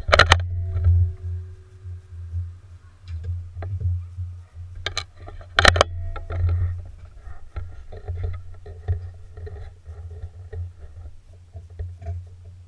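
.22 calibre Anschütz rifle firing: a sharp crack just after the start and another about five and a half seconds later, with a fainter click shortly before the second, over a steady low hum.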